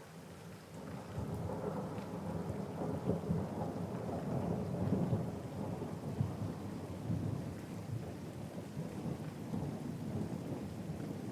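Thunder rolling over steady rain: a long low rumble swells up about a second in, is loudest around three to five seconds in, and keeps rumbling on under the hiss of the rain.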